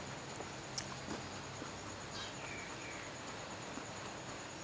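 Quiet chewing with a few sharp crunchy clicks, over a steady high-pitched insect trill.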